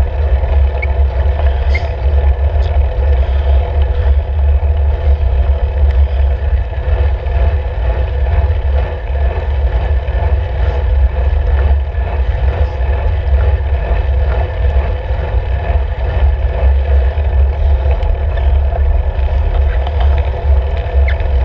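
Wind buffeting the microphone of a handlebar-mounted camera on a moving road bike: a loud, steady low rumble, with road noise from the tyres underneath.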